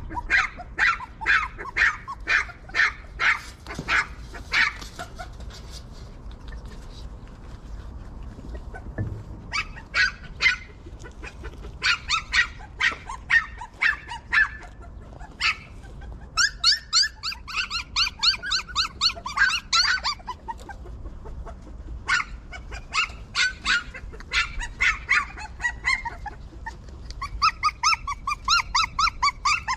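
Young puppies whimpering and yelping in runs of short, high-pitched cries, some runs coming several a second, with brief pauses between.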